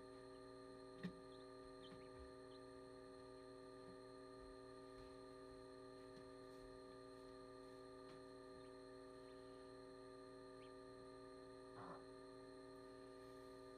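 Near silence with a steady electrical hum made of several fixed tones, one sharp click about a second in and a brief faint sound near the end.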